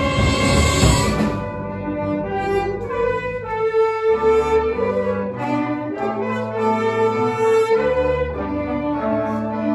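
Orchestra playing, led by held brass chords over low bass notes. It opens with a loud crash that dies away after about a second.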